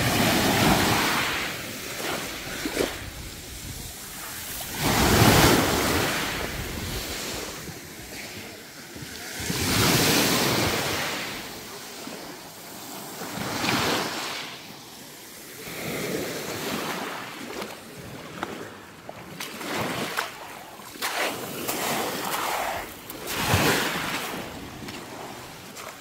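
Small sea waves washing in and drawing back on a pebble beach, surging every few seconds.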